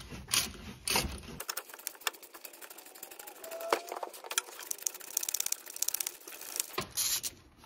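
Ratchet wrench clicking as it backs the TimeSert installation tool out of the freshly set steel thread insert in the aluminum engine block. Scattered clicks at first, then a quick, even run of ratchet clicks in the second half.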